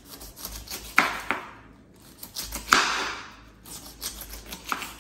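Knife slicing the rind off a fresh pineapple in long downward strokes: three crunchy, rasping cuts, each ending in a sharp knock as the blade comes through onto the wooden cutting board.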